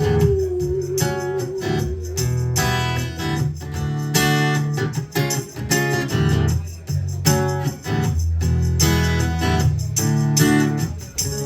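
A band playing the instrumental ending of a song: strummed guitar chords in a steady rhythm over bass notes, with a held note that fades out about a second in.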